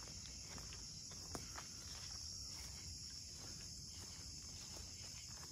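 Steady, faint chorus of crickets chirring, with a few soft clicks and taps.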